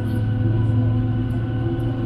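Steady cabin drone of a Boeing 737-700 taxiing, heard from inside the cabin: a strong low hum with several steady higher tones from its CFM56 engines at idle.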